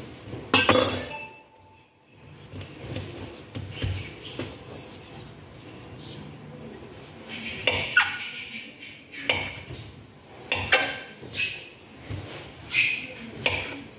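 Chef's knife chopping through a roll of dough and knocking against the countertop: a string of sharp, irregular knocks, one about half a second in and most in the second half.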